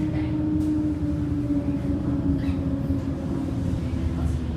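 City bus heard from inside the cabin while driving: a steady low rumble with a whine from the drive that slowly falls in pitch, as the bus eases its speed, and a few faint short rattles.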